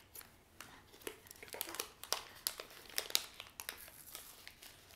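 Crinkling and crackling of a Loacker Tortina wafer's wrapper being handled and unwrapped by hand: a scatter of small, irregular crackles.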